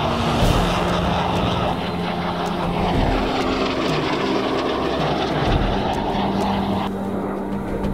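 Airplane engine noise as an aircraft flies past, a steady drone with a sweeping shift in tone midway. The sound changes abruptly near the end.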